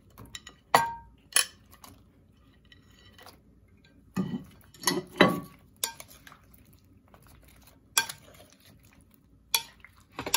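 Kitchen bowls and a spoon clinking as chopped capsicum and onion are tipped from a small bowl into a bowl of yoghurt-marinated paneer. There are a handful of sharp, separate clinks, the first ringing briefly, and a few soft, wet thuds in the middle as the vegetables drop in.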